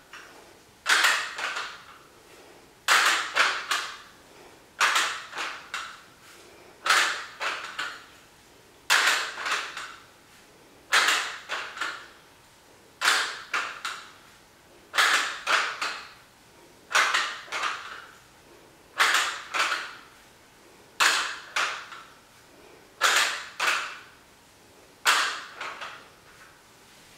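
Block-style adjustable dumbbells rattling, a short cluster of three or four metallic clicks about every two seconds as the plates shift inside their frames on each repetition.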